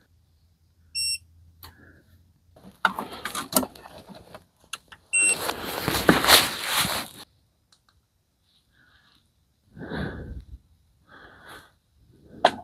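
An EcoFlow Delta 2 portable power station gives short electronic beeps as it is switched on and its display lights: one about a second in and a shorter one about five seconds in. Around the beeps are bursts of rustling handling noise, and a few breaths come near the end.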